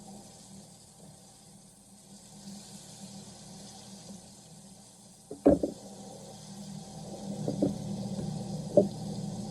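A sharp knock about halfway through, then a few lighter knocks and clatter, over a steady low hum: kitchen handling of cookware and food.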